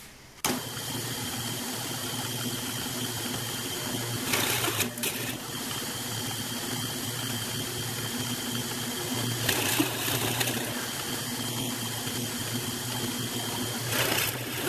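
Drill press running steadily with a Forstner bit, boring recesses into laminated Baltic birch plywood, with a few short rougher bursts as the bit cuts into the wood.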